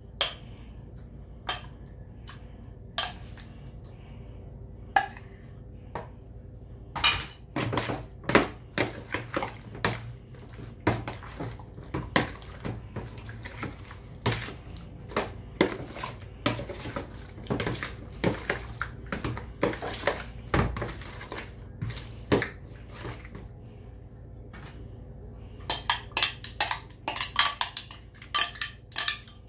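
A spoon scraping and tapping a glass bowl as the marinade is emptied out, then hands mixing salmon pieces and shrimp with the marinade in a plastic basin, with many irregular clicks and knocks of utensils and dishes, densest in the middle and again near the end.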